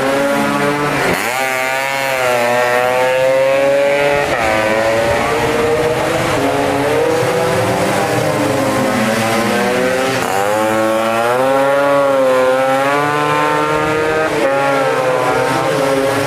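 Several tuned two-stroke racing scooter engines running at high revs, their pitch climbing as they accelerate and dropping sharply about a second in and again around ten seconds in, then climbing back up.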